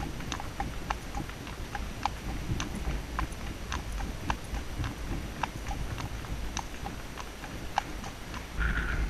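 Horse's hooves clip-clopping on a tarmac road at a walk: sharp, even hoof strikes about twice a second over a low rumble.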